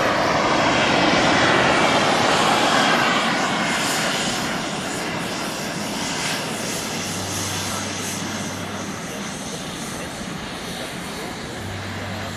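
Turbine jet engines of a large RC Concorde scale model running at high power in flight, a steady jet roar that fades gradually as the model flies away.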